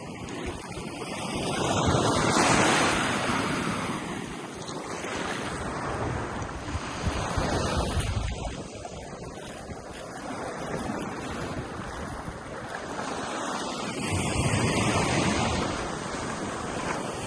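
Gulf of Mexico surf breaking and washing onto a sandy beach, with three larger waves swelling and receding: about 2 seconds in, around 8 seconds, and near 15 seconds. Wind rumbles on the microphone underneath.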